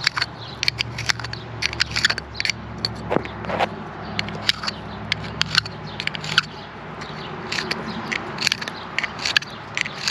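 Copper pipe end being deburred by hand: a run of irregular sharp scraping clicks as the edge is shaved off so a solder fitting will slip on.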